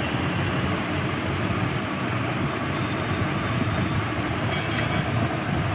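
Steady low rumbling background noise, with a few faint ticks near the end.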